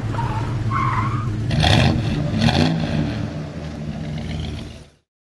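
Car engine sound effect running and revving, with two short bursts of tire squeal about one and a half and two and a half seconds in, fading out near the end.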